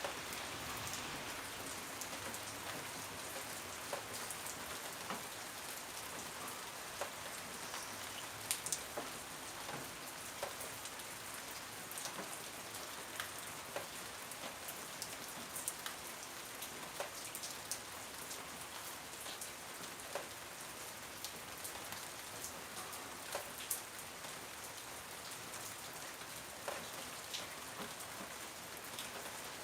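Steady rain falling, an even hiss with scattered sharper drips and drops landing close by.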